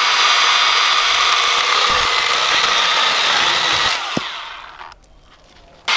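Milwaukee M12 Fuel Hatchet 6-inch battery pruning saw running and cutting through a log. About four seconds in it winds down and stops, then starts up again right at the end.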